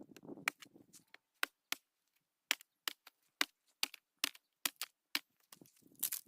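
Sharp chopping strikes on wood, about two a second, with a rustle of branches and leaves at the start.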